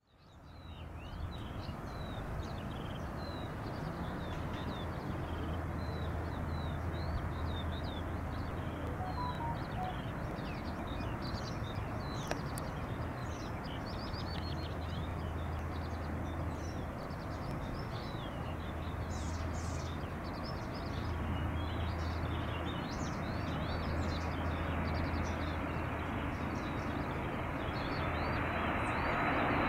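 Distant steady rumble of a Boeing KC-135T Stratotanker's four CFM F108 turbofan engines at takeoff power, growing louder with a thin high whine near the end as the jet lifts off. Many small birds chirp throughout.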